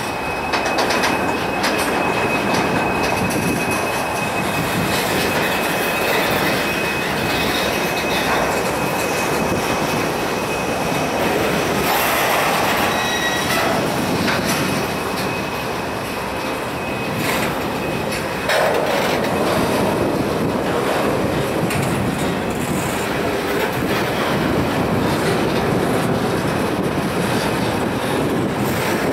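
Kansas City Southern freight cars rolling past on the rails with a steady clatter of wheels over the track. A thin, high-pitched wheel squeal runs through roughly the first ten seconds.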